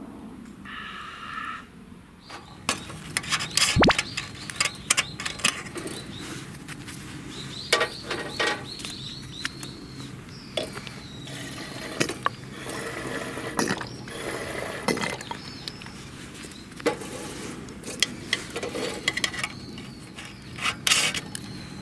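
A metal hurricane lantern being refilled with fuel from a plastic bottle: repeated clinks and knocks of the lantern and bottle being handled, with some liquid pouring.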